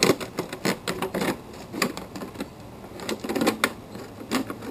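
Scissors cutting around a thin clear plastic one-gallon jug: a quick, uneven series of crisp snips as the blades close through the plastic.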